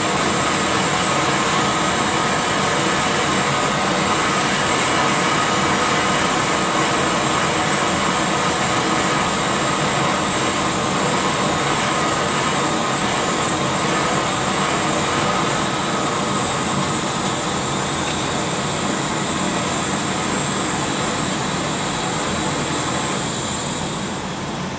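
Gas brazing torch burning with a steady hiss while heating a steel joint for brazing, over the steady run of the hearth's extraction fans. The hiss drops away near the end.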